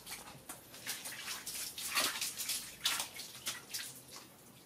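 Water from a garden hose splashing over a small monkey and into a plastic bucket of water, with irregular louder splashes.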